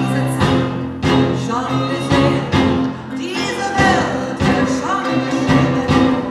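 Live band of drum kit, electric guitar and strings playing a song, with a woman singing over it. A held chord gives way in the first half second to a steady beat of about two hits a second.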